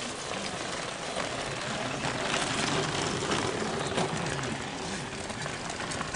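Bicycles riding past over a cobbled track: a steady rattling rush of tyres on stone, a little louder in the middle as a rider comes close.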